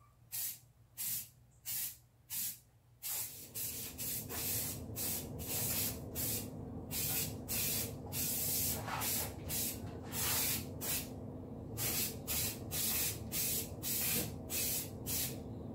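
Corrosion-resistant undercoating being sprayed in short bursts, about one or two a second, laying a thick coat on a metal body panel.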